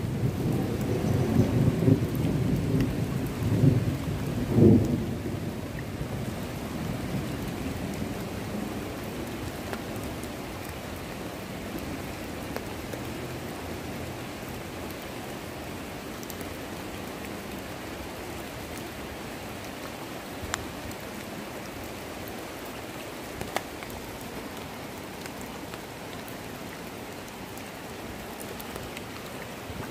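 Steady rain falling on the ditch water and the grass around it. A low rumble over the first few seconds dies away, and a couple of sharp ticks come past the middle.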